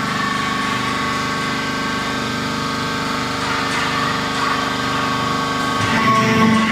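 Hydraulic power unit of a waste tyre baling press running, a steady mechanical hum with a fixed whine; a louder, deeper hum sets in near the end.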